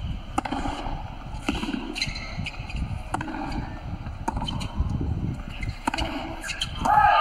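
Tennis rally on a hard court: sharp racket strikes on the ball about a second to a second and a half apart. Near the end a crowd breaks into loud cheering and shouting as the point ends.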